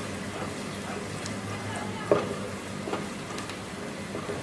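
Chopped onion sizzling in hot oil in a karahi, stirred with a spatula, with one sharp knock about two seconds in and a lighter one just after. The onion is being fried until lightly browned.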